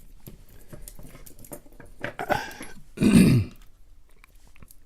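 Small scattered clicks and scrapes of a screwdriver working on a padlock's parts. About three seconds in comes a short, loud vocal sound that falls in pitch.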